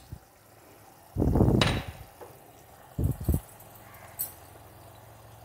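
Thick tomato purée boiling in a clay pot, with dull, low plops and knocks: a longer one about a second in and a quick pair about three seconds in.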